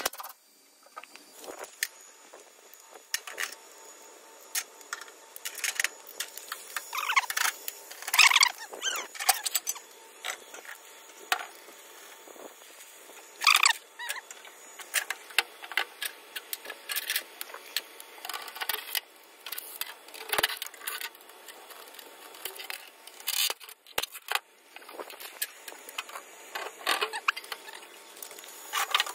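Irregular clinks, clicks and knocks of hand tools on the metal fittings and parts of a mini excavator during hydraulic hose repair work, with a couple of louder, longer scraping sounds about eight and thirteen seconds in.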